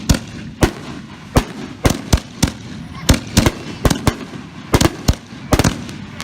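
A rapid volley of firework salutes: sharp, loud bangs from shells bursting in the air, coming irregularly about two to three a second.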